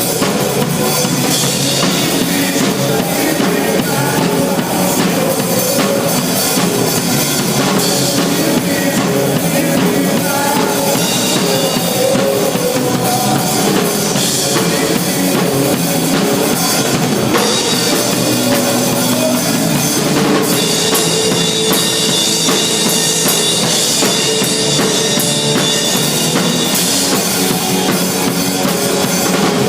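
Loud rock-style music with a steady drum-kit beat.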